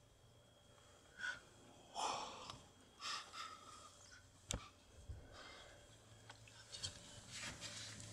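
Soft, breathy sounds and hushed whispering close to the microphone, a few short bursts spread through, with one sharp click about four and a half seconds in.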